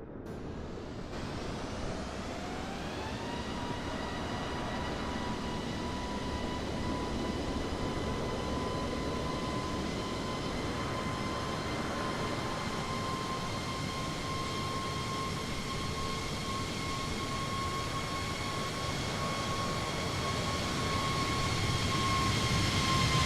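Jet airliner's engines spooling up for takeoff: a whine rises over the first few seconds and then holds at a steady high pitch over a rushing jet noise that grows louder toward the end.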